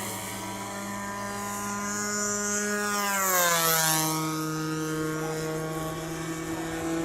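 Radio-controlled 1400 mm P-51 Mustang model with an onboard engine-sound system, flying past. Its steady engine drone swells and drops in pitch as it passes, about three seconds in, then carries on at the lower pitch.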